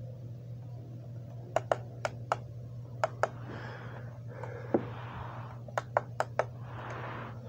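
Remote control buttons clicking, a dozen or so sharp presses, several in quick pairs, with soft rustling between them. A steady low hum runs underneath.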